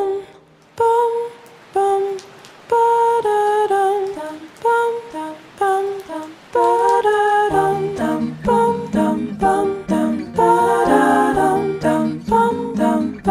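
Background music: a slow melody of held notes over sparse backing, with a bass line and fuller accompaniment coming in about halfway through.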